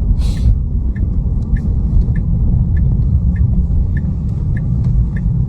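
Inside a Tesla, steady low road rumble with the turn-signal indicator ticking evenly, about one tick every 0.6 s, as the car signals a right turn. There is a brief hiss right at the start.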